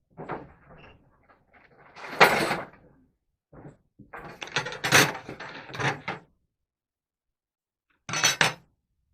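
Workshop handling noise: irregular knocks, scrapes and clatter in several bursts, loudest about two seconds in and again around five seconds in, with a quick double knock near the end.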